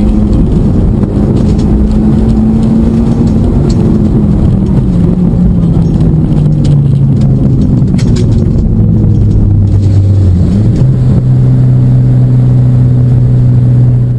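Mitsubishi Lancer Evolution X's turbocharged 2.0-litre four-cylinder heard from inside the car, running at fairly low revs. The revs ease down gradually, step up slightly about ten seconds in, then hold steady, with light clicks scattered over the engine note.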